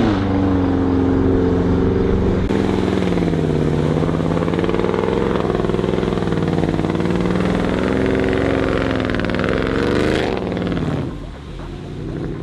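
Range Rover SUV engine revving up and down under load as it drives through deep mud. The engine note falls away about eleven seconds in.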